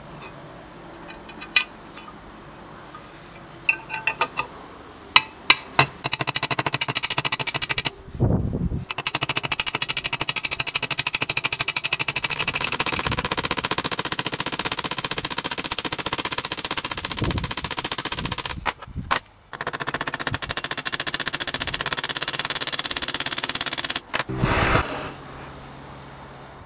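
A few sharp metallic clicks and clanks of metal parts being handled. Then a power tool runs with a fast, rattling buzz for most of the rest, stopping briefly twice before cutting off near the end.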